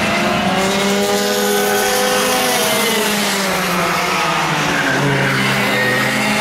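Several go-kart engines running hard on track, more than one heard at once. Their pitches rise and fall as the karts accelerate and slow for corners and pass by.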